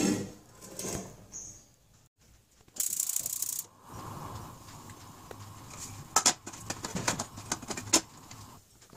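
A steel lid being handled and set on a frying pan: a run of light metallic clicks and clinks in the last few seconds. Before that there is a brief hiss about three seconds in, over a faint steady background.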